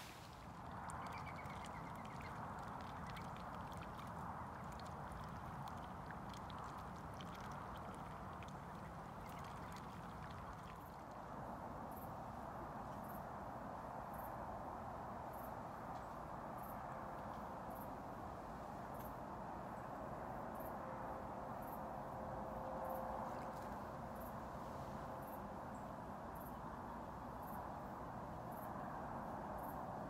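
Steady riverbank ambience: an even rushing hiss throughout, with faint regular high clicks about once a second from about halfway through.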